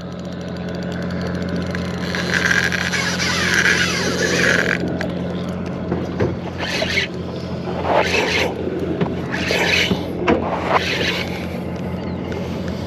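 A boat motor hums steadily while a spinning reel whirs as a hooked fish is played: a long run of reel noise for the first five seconds, then short bursts every second or so.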